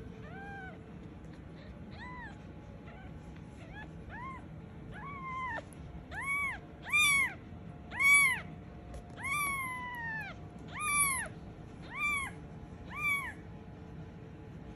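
Very young kitten crying for its mother: about a dozen short, high-pitched mews, each rising then falling in pitch, faint at first and growing louder about halfway through.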